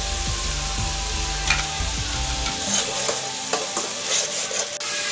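Onions and ginger paste sizzling in hot oil in a pot, stirred and scraped with a spatula.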